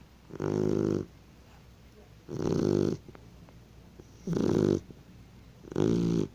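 Three-month-old Shar-Pei puppy snoring in its sleep: four snores of about half a second each, one roughly every two seconds.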